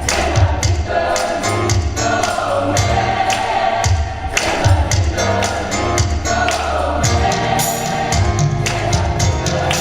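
Gospel choir singing over a band, with a steady beat of drum hits and a strong bass line.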